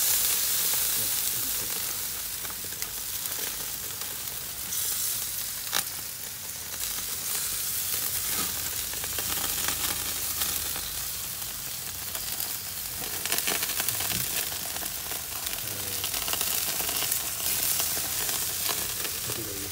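Chunks of coconut-marinated beef sizzling on a hot grill grate: a steady hiss with scattered crackles and one sharper pop about six seconds in.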